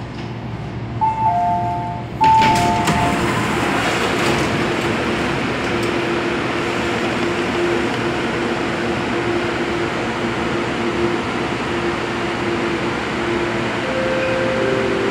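MTR A-Train stopping at an underground station: a descending two-note chime sounds twice, and the doors slide open with a sudden rise in station noise. Then a steady hum, with a low tone sounding on and off.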